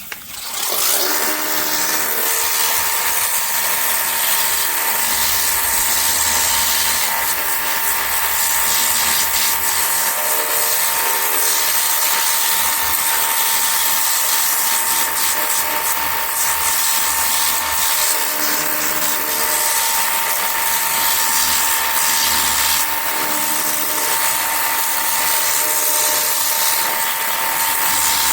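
Ontel Turbo Jet HydroX5 Pro cordless pressure washer running steadily. Its battery motor and pump give a constant high whine over a hiss.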